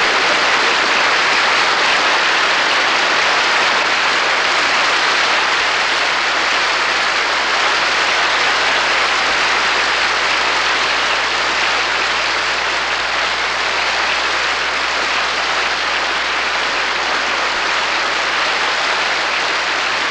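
Large audience giving a standing ovation: dense, steady clapping with no break.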